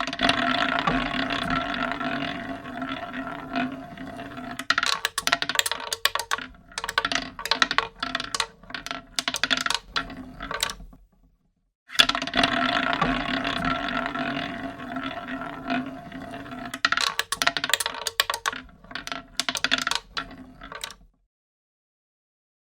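Casino roulette spin: the ball runs around the wheel's track with a steady rolling whirr, then drops and clatters in a run of sharp clicks across the pocket frets before settling. The whole spin plays twice, with a one-second gap between.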